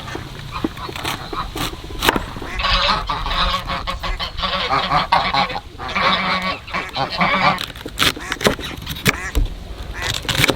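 Geese honking in a run of repeated calls, with scattered sharp knocks.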